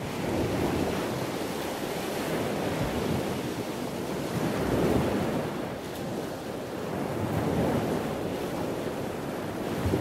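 Ocean surf: a steady wash of breaking waves that swells and eases, loudest about halfway through.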